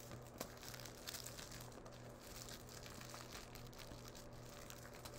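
Aluminum foil crinkling and crackling faintly as hands fold it and press its creases, in irregular small crackles and ticks.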